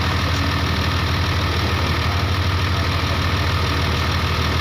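Case 2050M crawler dozer's diesel engine idling steadily at low throttle, with an even low hum.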